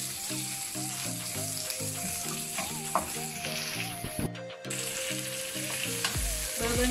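Sliced onions and green chillies sizzling in hot oil in a nonstick frying pan, stirred and scraped with a wooden spatula. The sound drops out briefly about four seconds in.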